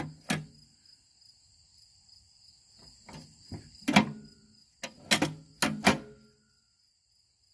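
Sharp metallic clicks and knocks from riding mower parts being handled, the loudest about four seconds in and a quick cluster a second later, over steady cricket chirping. All sound cuts out about six seconds in.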